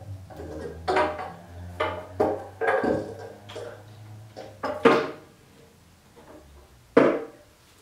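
Metallic clanks and rattles as the test stand's battery and wiring box is handled and taken down from its wall mount, a series of sharp ringing knocks with the loudest about five seconds in and another near seven seconds. A low steady hum runs underneath and fades out about five seconds in.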